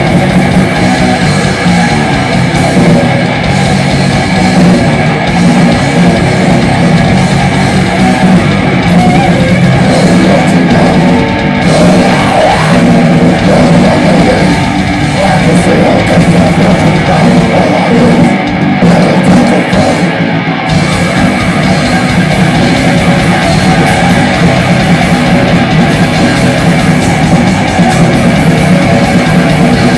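Live heavy metal band playing loud: electric guitar, bass guitar and drum kit together, dense and unbroken.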